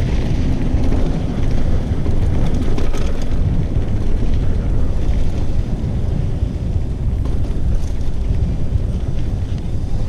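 Wind rushing over the microphone of a GoPro on a moving mountain bike, with the bike's knobby tyres rumbling and rattling over the dirt trail.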